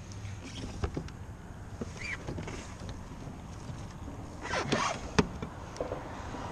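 Steady low rumble of wind and water around a plastic fishing kayak, with scattered small clicks from gear being handled on deck. About four and a half seconds in comes a short burst of knocking and rattling, and near five seconds the loudest knock, a single sharp one.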